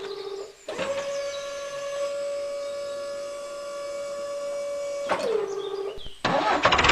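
Small electric motor whining steadily at one high pitch, then dropping in pitch and stopping about five seconds in as it winds down. A louder, noisier sound with fast ticking starts near the end.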